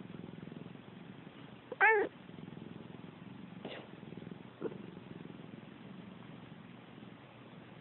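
Domestic cat purring steadily, with one short, loud, grumpy 'nuun' meow about two seconds in that rises and falls in pitch: a sleeping cat's displeasure at being disturbed. Two faint short sounds follow a couple of seconds later.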